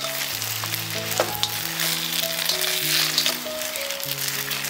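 Sauce-coated fried cauliflower florets sizzling in a hot wok as a spatula stirs and tosses them, with a few sharp knocks of the spatula against the pan.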